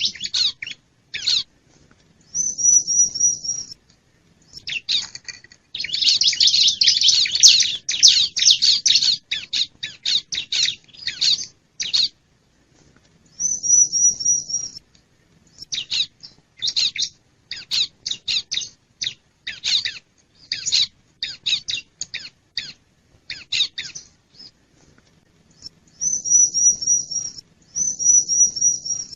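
Bar-winged prinias (ciblek) calling in a lure recording: clusters of sharp, high chattering notes, broken up four times by a fast, even high trill about a second and a half long.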